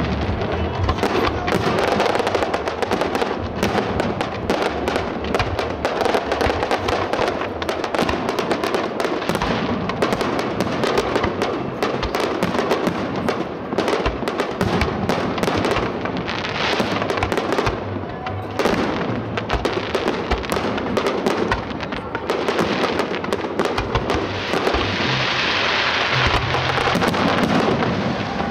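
Fireworks display: a continuous barrage of bangs and crackles from aerial shells and fountains, with a denser hissing stretch near the end.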